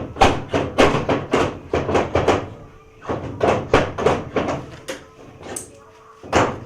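A rapid series of sharp knocks or bangs, about three a second, that pauses about two and a half seconds in and then resumes.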